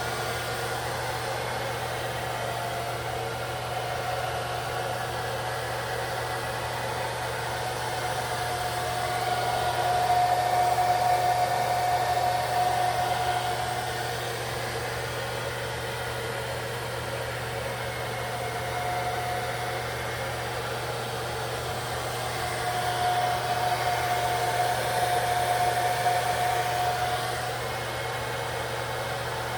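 Handheld hair dryer running on its low setting, held very close, drying lace-wig adhesive at the hairline: a steady blowing noise with a hum and a whine. It grows louder twice for a few seconds.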